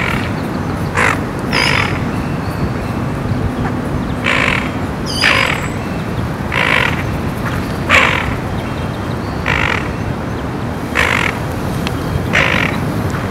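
Tufted duck parents giving frantic, harsh alarm calls, about ten short rasping calls at roughly one-second intervals, raised against a grey heron preying on their ducklings.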